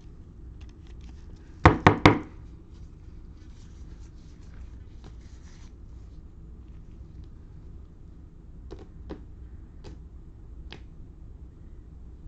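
Hands handling trading cards and packs on a table: three quick, loud knocks close together about two seconds in, then faint rustling and a few light, separate taps.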